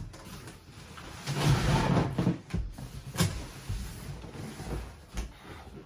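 Cardboard packaging and chair parts being handled and pulled from a box: a stretch of rustling and scraping about a second in, then a few sharp knocks.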